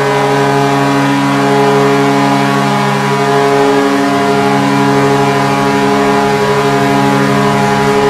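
Vancouver Canucks goal horn sounding one long steady blast, a deep chord of several tones held at the same pitch.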